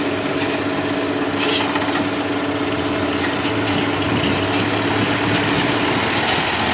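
Heavy diesel earthmoving machinery running steadily, with a steady whine in the engine note that stops about six seconds in.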